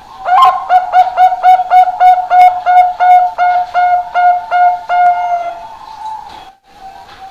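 Zebra dove (Bangkok-type perkutut) singing: a quick run of about fifteen short, clear coos, roughly three a second, that trails off after about five seconds.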